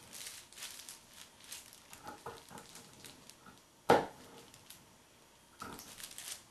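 Sharp scissors snipping through the folded shirt fabric along a pattern, in runs of short crisp cuts, with one loud sharp knock about four seconds in.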